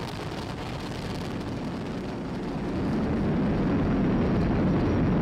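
SpaceX Falcon 9 rocket's nine Merlin 1D first-stage engines firing during ascent: a steady low rumble that grows louder about three seconds in.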